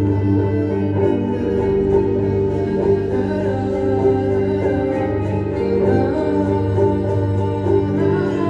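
Ambient music played live by a small band: layered, sustained organ-like tones and held chords, steady and without a beat.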